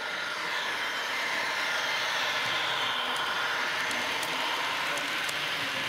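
H0 scale model train running past on the track: a steady rolling rush of the wheels and coaches that swells in the first couple of seconds as the red passenger coaches come close, with faint ticks in the second half.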